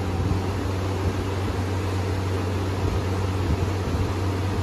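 Novamax 75-litre air cooler's fan running on its high speed setting: a steady rush of air over a constant low hum.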